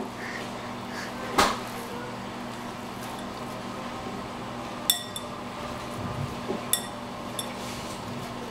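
Kitchenware clinking during dough mixing: a sharp knock about a second and a half in, then two ringing clinks, one near the middle and one a couple of seconds later, over a steady low hum.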